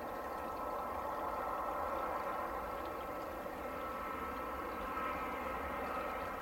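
Boeing 737-800's CFM56-7B turbofan engines on final approach: a steady jet rush with a thin fan whine that grows a little stronger in the second half as the airliner nears.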